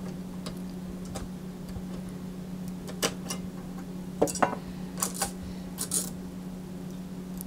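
Scattered clicks and light taps of a metal tool and parts as an airsoft KWA SR10 2GX gearbox shell is opened and its gears and spring are handled. Most of them come in the second half, over a steady low hum.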